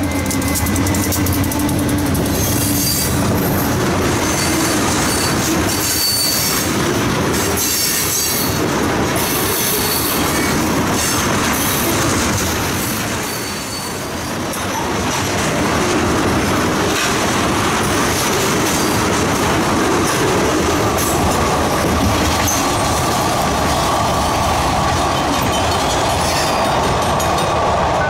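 Freight train rolling past close by, its wheels squealing and clacking over the rail joints as the cars go by. The sound dips briefly about halfway through, then the steady rolling and squealing resumes.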